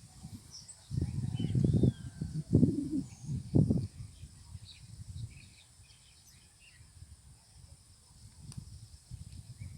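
Wind buffeting the microphone in several loud gusts during the first four seconds, then easing off. Faint bird chirps sound here and there underneath.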